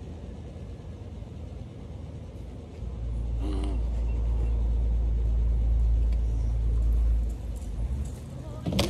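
Wind buffeting an outdoor microphone, a low rumble that swells to a heavy roar from about three seconds in and eases off after about seven seconds. A short, sharp sound with a falling cry comes right at the end.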